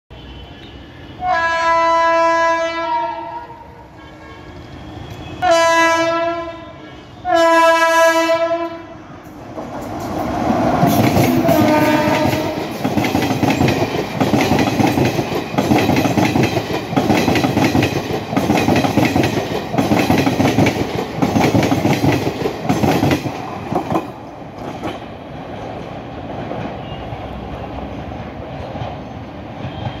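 A WAP-5 electric locomotive sounds its multi-tone horn three times, a long blast and then two shorter ones, with a fainter short blast about twelve seconds in as it passes. The train then runs by with a loud, rhythmic clatter of wheels over the track, which eases off over the last few seconds.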